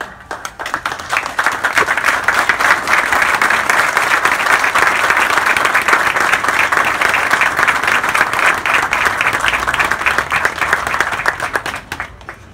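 Mourners applauding: many people clapping at once, starting right after a tribute ends, holding steady for about eleven seconds and dying away near the end.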